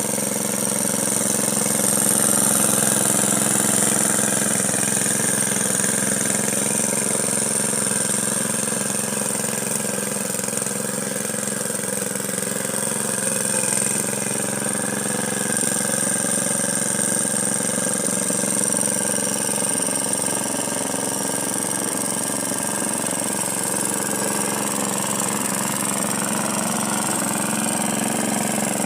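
Ryobi lawn mower running steadily while cutting grass.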